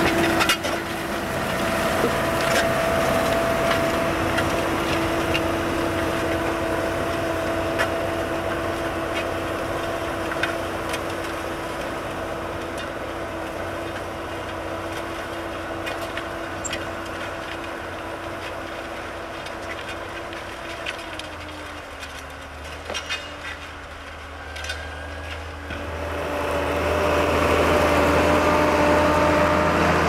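Farm tractor engine running steadily under load while pulling a disc harrow through the soil, with scattered clicks and knocks from the discs working the ground. About two-thirds of the way through the engine tone drops slightly and the sound fades for a few seconds, then grows louder again near the end.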